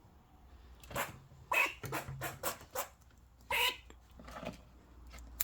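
Eastern grey squirrel giving a run of about eight short, sharp alarm barks over nearly three seconds, the warning call it makes at crows flying past.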